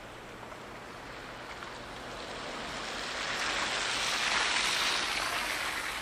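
Outdoor city street noise in a snowstorm: a rushing hiss that grows gradually louder through the second half, at its loudest about four to five seconds in.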